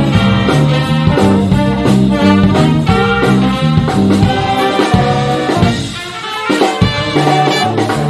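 Big band playing swing: saxophones, trumpets and trombones over a steady beat, with a brief quieter break about six seconds in before the full band comes back in.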